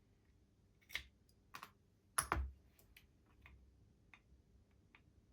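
Small clicks and light knocks of tools and metal parts being handled while a model locomotive is worked on: three sharper knocks in the first half, the loudest a double knock about two seconds in, then a few fainter ticks.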